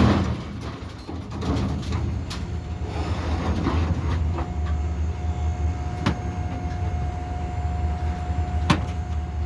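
Steady low rumble of an idling vehicle engine, with a few sharp metallic clicks and a thin steady whine that comes in about halfway through.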